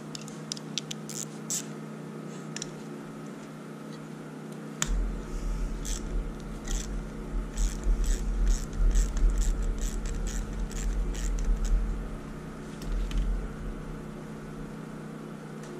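Small hand wrench working on a motorcycle carburetor on a workbench: scattered metal clicks and taps, then from about five seconds in a run of quick clicks and low bumps for about seven seconds as the float needle seat is unscrewed from the carb body. A steady electrical hum runs underneath.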